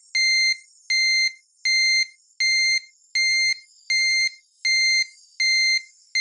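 Electronic beeping as an ambulance sound effect: one steady, unchanging beep repeated about every three-quarters of a second, about nine times.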